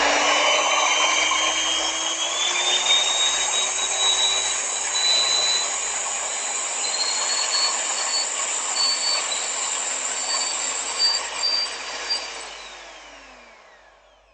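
Bajaj Majesty HM01 250 W DC-motor hand mixer running with its beater hooks, its motor whine rising in pitch as the speed is stepped up about two seconds in. Near the end it is switched off and the whine falls away as the motor spins down.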